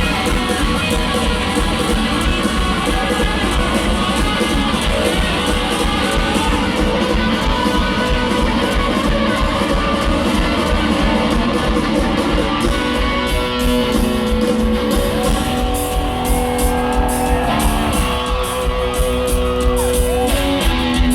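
Live rock band with distorted electric guitars and drums playing loud. From about halfway through, the dense playing thins into long held guitar notes over a steady drum beat.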